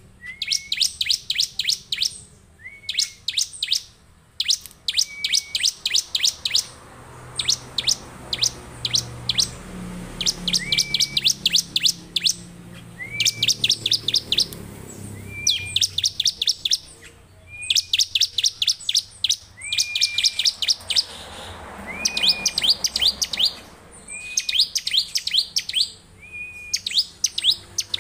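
Ciblek (bar-winged prinia) singing continuously. It repeats quick phrases, each a short note that turns up at the end followed by a fast run of sharp, high chips, about a second long with brief pauses between.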